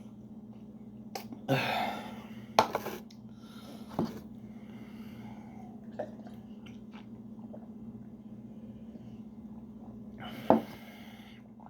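A person chewing a mouthful of wet canned cat food, with a few sharp, wet mouth noises and short gagging bursts, the loudest near the end. A steady electrical hum runs underneath.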